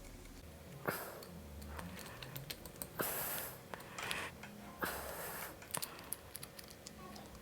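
Faint small metallic clicks and ticks of a small screwdriver tightening the flathead grub screw of a gold-plated banana plug onto a speaker cable, with a few short breaths in between.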